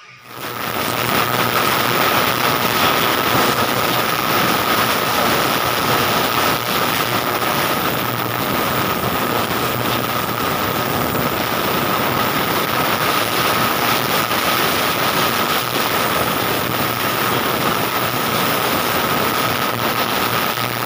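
Ultrasonic cleaning bath switched on and running with a motorcycle throttle body soaking in it: a loud, steady hiss with a steady high hum through it, building up over the first second.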